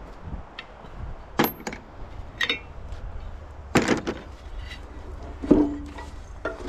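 Metal clanking while an air compressor is taken apart for scrap: about five separate knocks and clanks of tools and metal parts, a few ringing briefly, the loudest near the middle.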